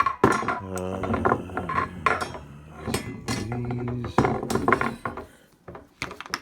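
Quick-release hangers clicking and clinking against a metal snap rail as they are pushed on and worked off, with a run of sharp clicks.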